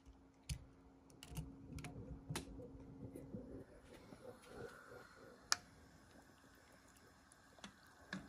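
Scattered light clicks and taps of kitchen jars and utensils being handled, with one sharp click about five and a half seconds in. A faint steady hum stops about a third of the way through.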